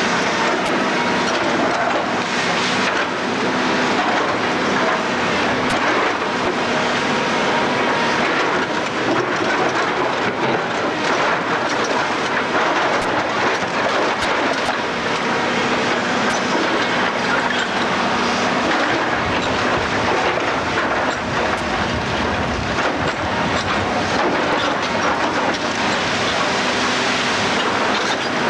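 Heavy demolition machinery running steadily, with continual clattering and crunching of metal and rubble.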